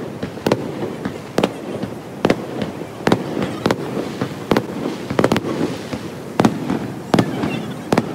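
Fireworks display going off: about a dozen sharp bangs of bursting shells, roughly one a second, over a continuous background rumble.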